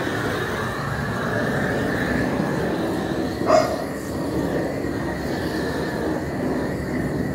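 A dog barks once, about three and a half seconds in, over a steady noise.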